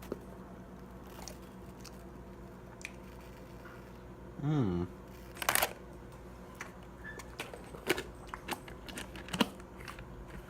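Scattered light clicks and knocks of handling over a steady low hum, with one short pitched vocal sound that dips and rises about four and a half seconds in.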